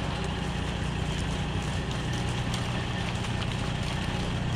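A diesel semi truck idling with a steady low hum, with a few faint scattered clicks of cattle hooves stepping on the frozen lot.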